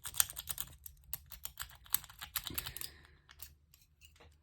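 Rapid small metallic clicks and scrapes of a lock pick working the pins of a cross lock under tension, dense for about the first second and then thinning out.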